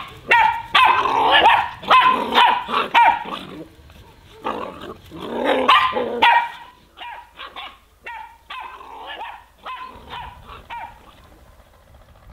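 Puppies yapping and barking in quick runs of short high calls while they play. The calls are loudest in the first half and thin out to a few scattered yips later on.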